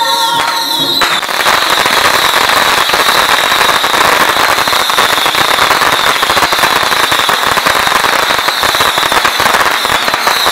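A long string of firecrackers going off in a rapid, unbroken crackle. Music is heard faintly under it for the first second.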